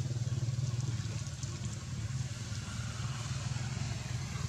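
An engine running steadily at low speed: a low, even hum that eases off slightly partway through.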